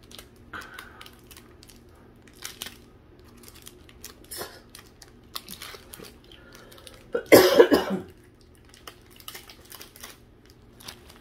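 A person coughs loudly once, in a short run of pulses about seven seconds in, over soft clicks and rustles of trading cards being handled.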